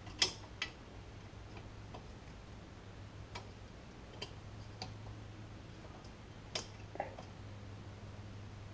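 Irregular small metallic clicks and taps from needle-nose pliers working the shoe retaining spring, pin and cap of a C3 Corvette's rear parking-brake shoes, the loudest just after the start and again about two-thirds through, over a faint steady low hum.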